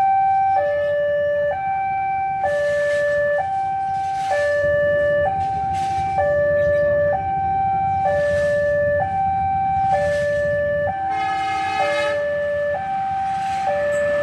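Railway level-crossing warning alarm sounding a steady two-tone alternation, a higher and a lower tone each held just under a second, over and over, the signal that a train is approaching. A low rumble builds beneath it, and a brief horn sounds about eleven seconds in.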